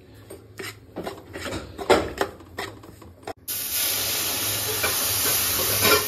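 A metal spatula scrapes and taps against a pan while stirring dry roasted ground dal and spices. About three and a half seconds in, water poured into the hot pan sets off a sudden, loud, steady hiss of sizzling and steam.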